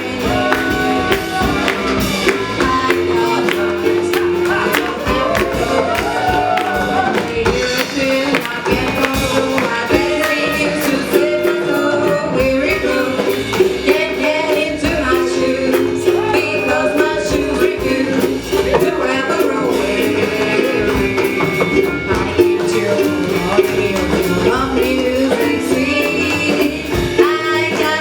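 Live band music with a pitched melody line over a steady beat, and sharp clicks of tap shoes struck in rhythm throughout.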